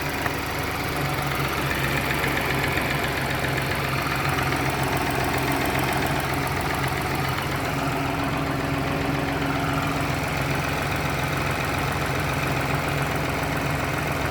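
BMW X1 18i's B38 three-cylinder petrol engine idling steadily on a cold start, with a fine, regular ticking running through the idle: the cold-start tick the owner is trying to find a fix for.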